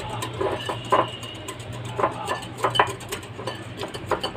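Wire whisk beating a thin maida (flour) and water batter in a glass bowl: quick, irregular clicks and taps of the wires against the glass.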